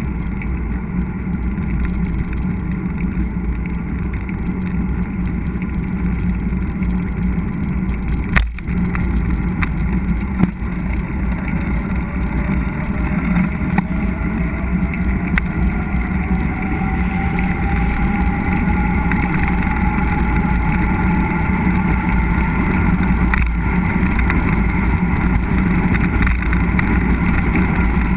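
Steady rumble of wind on an action camera's microphone and tyres rolling over a dirt trail during a mountain-bike ride, with a couple of sharp knocks from bumps. A faint rising whine comes in midway.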